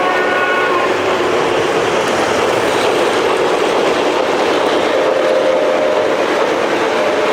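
Model trains running on the layout's track with a steady clattering rumble. A train horn chord cuts off within the first second.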